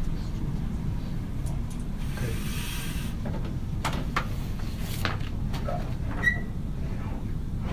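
Steady low room rumble with scattered handling noises: a soft rustle about two seconds in, then a few sharp clicks and knocks.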